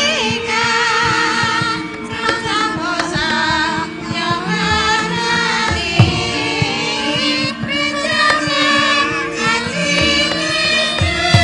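Javanese gamelan music accompanying a wayang kulit shadow-puppet play: sustained metallophone and gong tones under singing with a wavering pitch. A few sharp percussive strokes cut through, the loudest about six seconds in.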